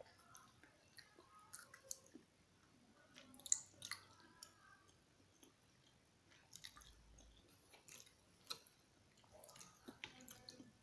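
Faint, close-miked chewing of tteokbokki: soft wet mouth sounds with scattered small clicks, the sharpest about three and a half seconds in.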